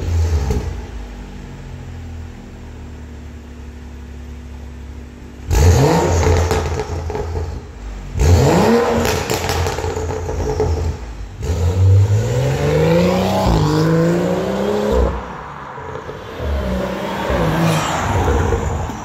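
BMW M135i's 3.0-litre turbocharged straight-six running through a Scorpion cat-back exhaust and decat downpipe. It idles steadily for a few seconds, then is revved in sharp blips and one longer climb and hold, dropping back toward idle between them.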